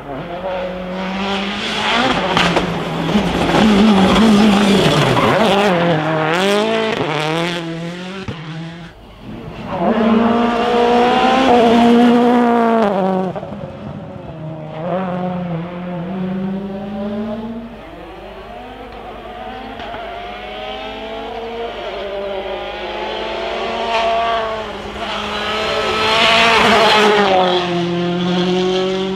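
Rally cars driven hard on a special stage: engines revving up and down through the gears, the pitch climbing and dropping again and again, loudest as cars pass close.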